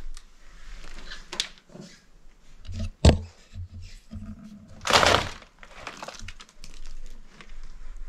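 Someone climbing down through a floor hatch into a debris-strewn cellar: a sharp knock about three seconds in, then a brief scuffing rush about two seconds later, among fainter knocks.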